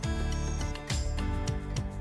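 Background music with a steady beat and sustained tones over a strong bass.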